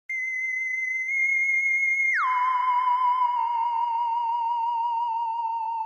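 A single high electronic tone, like a theremin or synthesizer, holds steady and then swoops sharply down to a lower pitch about two seconds in. It carries on there with a wavering vibrato, sinking slowly.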